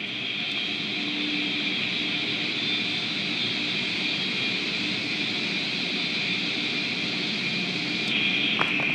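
Automatic car wash running, heard through a glass window: a steady rushing hiss of water spraying and machinery, which gets a little louder near the end.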